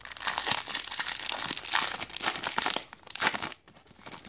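Foil Topps Platinum trading-card pack being torn open and crinkled by hand, a dense crackling rustle that dies down about three and a half seconds in.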